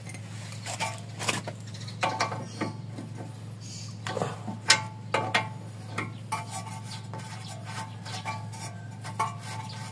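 Steel hand tools (pliers, then an L-shaped socket wrench) clinking and tapping against the ball joint and lower arm of a Daihatsu Taruna's front suspension: irregular sharp metallic clinks, with a steady low hum underneath.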